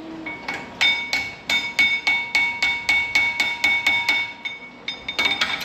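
Hammer tapping new brake pad clips onto a GMC Acadia's front caliper bracket to seat them: a quick, even run of light metal-on-metal taps, about three or four a second, each with a short metallic ring.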